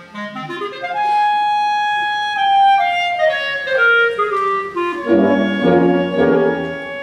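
Clarinet playing a held high note, then a long stepwise descending run; lower accompanying notes and chords join about five seconds in.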